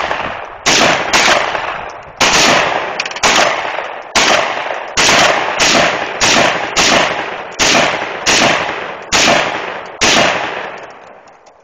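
AR-15 rifle fired semi-automatically: about a dozen single shots at a steady pace of roughly one a second, each followed by a ringing echo, the last about ten seconds in.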